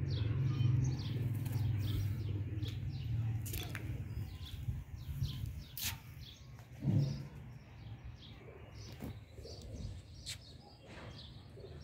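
A flock of domestic pigeons on a rooftop: low cooing that is strongest in the first few seconds and then fades, occasional wing flutters, and many short high bird chirps throughout, with one louder low sound about seven seconds in.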